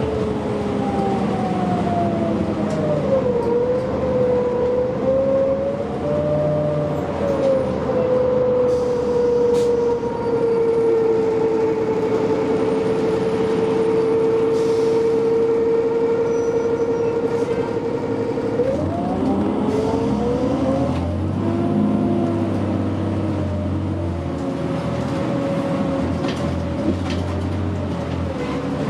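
Inside a 2009 New Flyer D60LFR articulated diesel bus under way: a drivetrain whine that rises and falls in pitch with speed over a steady rumble. It holds one steady pitch for several seconds, then drops sharply about two-thirds through and climbs again.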